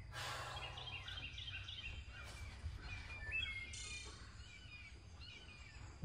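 Birds chirping faintly, a run of short repeated notes, over a steady low rumble.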